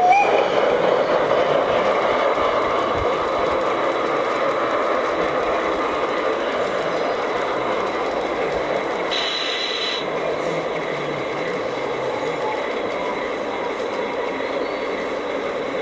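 LGB G-scale model of a Saxon IV K narrow-gauge steam locomotive and its coaches running along garden-railway track: a steady rolling rumble of wheels and motor that slowly fades as the train moves away. A brief rising tone sounds right at the start.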